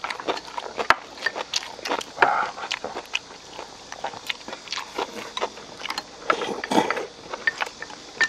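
Several people eating at one table: irregular chewing and lip smacking, with small clicks of chopsticks and spoons against bowls.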